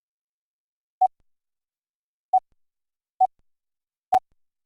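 Four short beeps of a computer-generated Morse code (CW) tone, all at one pitch and unevenly spaced, the last with a sharp click in it.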